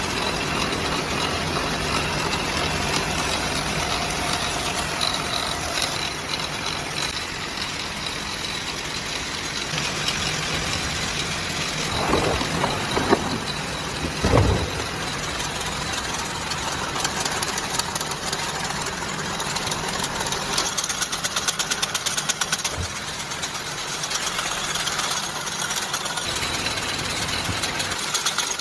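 Factory machinery running steadily: a low hum under a dense mechanical clatter, with a couple of knocks about halfway through and a fast ticking rattle a little later.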